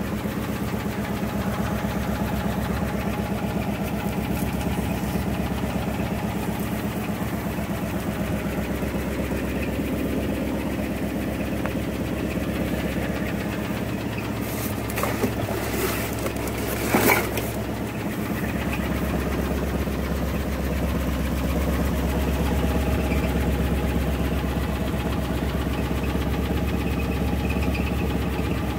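1972 Ford F-350 wrecker's engine idling steadily, with a few sharp knocks and a short clatter a little past halfway.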